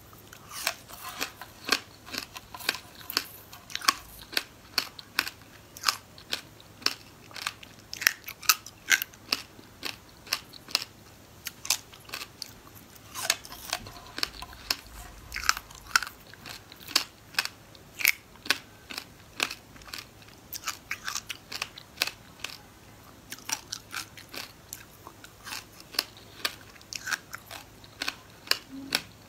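Close-up crunching and chewing of frozen passion fruit pulp pieces with their seeds: a dense run of crisp cracks, several a second, as the frozen pieces break between the teeth.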